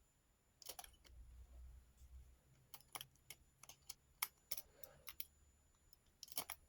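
Lock-picking rake and tension tool clicking and scraping in a lock's keyway: irregular sharp metal clicks, thickest in the middle and bunched together near the end.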